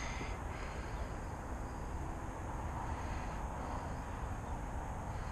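Steady outdoor background noise: a low rumble under an even hiss, with no distinct event.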